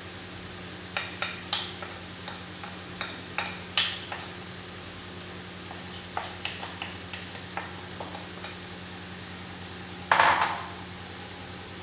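A bowl clinking and knocking against the rim of a metal pan as semolina is tipped and tapped out into water, a string of light, irregular clinks. About ten seconds in comes one louder, longer clatter as a spatula goes into the pan, over a steady low hum.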